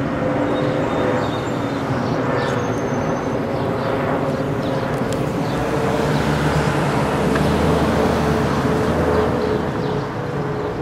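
A vehicle engine running steadily, with a low rumble that swells from about six to nine seconds in.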